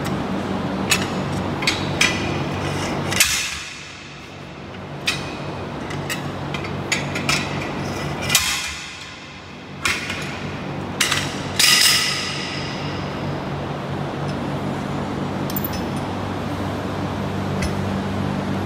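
A manual bead breaker is driven again and again into the bead of a heavy truck tire on its metal wheel. It makes sharp metallic clanks, some ringing, about a dozen strikes over the first twelve seconds, then only the odd one. A steady low shop hum runs underneath.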